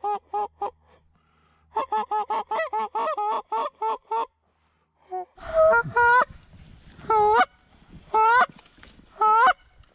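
Canada geese honking: quick runs of short, rapid honks in the first half, then after a brief pause louder, slower honks about one a second over a low background rumble.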